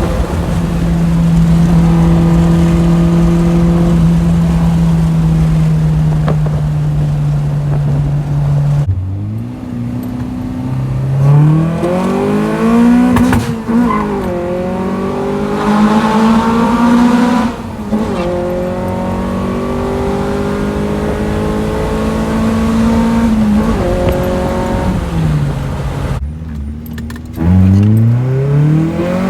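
Honda Prelude's H22A4 four-cylinder with straight-piped headers, first holding steady revs that slowly sag. Then, after abrupt cuts, it revs up hard again and again, its pitch climbing and dropping back between gears.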